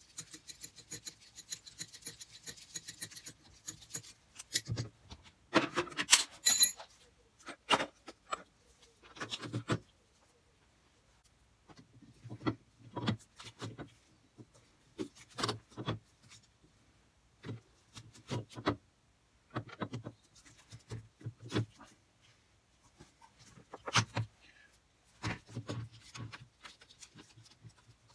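Irregular metallic clinks, scrapes and knocks of tools and steel parts being handled on a metal lathe that is not running: a spanner working on the tool post, then a stub axle being set onto the reamer.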